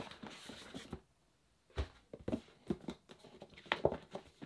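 Hands handling a cardboard box and its foam packaging insert: soft rustling and sliding, then a scatter of light knocks and taps.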